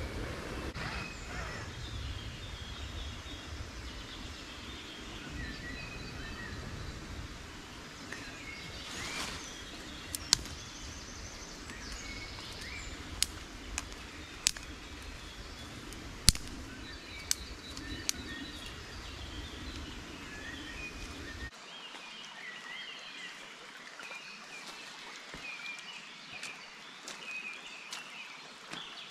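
Woodland birds chirping and singing over a steady low background. In the middle come six or seven sharp, separate cracks, about a second apart, which are the loudest sounds. Near the end the low background drops away, leaving the birdsong.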